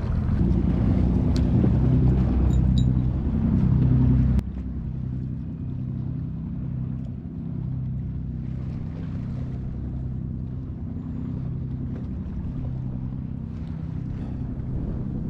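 Wind buffeting the microphone over the sea washing against a concrete breakwater. The rumble drops abruptly about four seconds in, leaving a steadier low hum.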